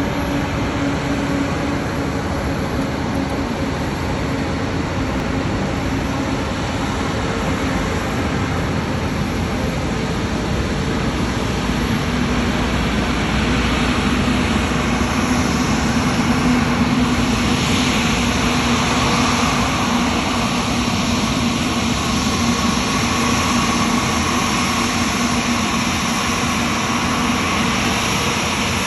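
Airbus A350-1000 jet engines running with a steady rumble and a low hum, growing louder about halfway through as the airliner passes, then easing off slightly.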